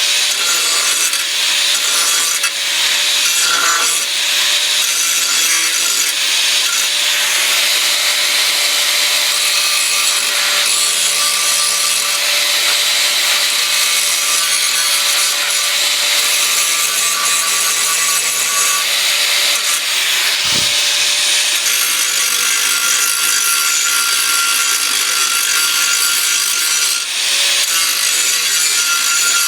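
Angle grinder running steadily against steel, grinding down weld beads, a continuous rasping hiss over the motor's whine. There is a brief low knock about two-thirds of the way through.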